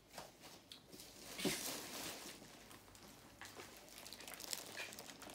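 Plastic bag wrapping crinkling and rustling in irregular bursts as a packaged handbag is lifted and handled, loudest about a second and a half in, with a few sharper crackles near the end.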